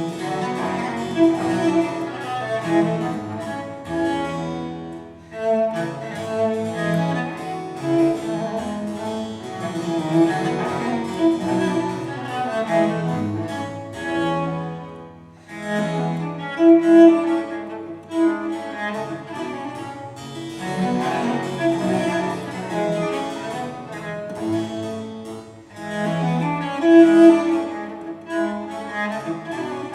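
Instrumental classical music with bowed strings and a keyboard, played as a recorded sound sample of a hi-fi system, in phrases with brief lulls between them.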